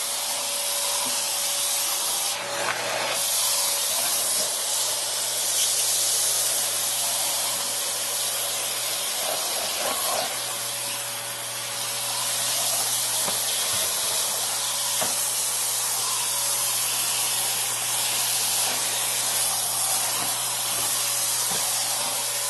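Bissell Zing bagged canister vacuum running on a hardwood floor: a loud, steady rush of suction with a constant motor whine and low hum underneath.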